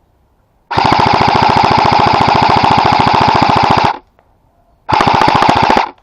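Airsoft electric rifle firing on full auto close to the microphone: a rapid, even burst of about three seconds, a second's pause, then a second burst of about a second.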